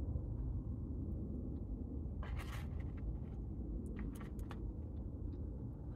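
Scratchy scraping and rustling handling sounds, with one longer scratch about two seconds in and a few short clicks a little before the end, over a steady low hum.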